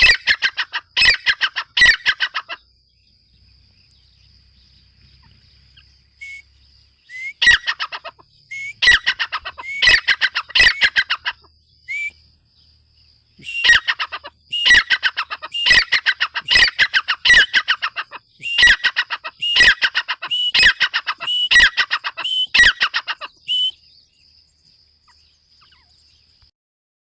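Grey francolin calling: loud, fast-repeated phrases in three bouts separated by pauses. A faint, thin, steady high whine runs underneath.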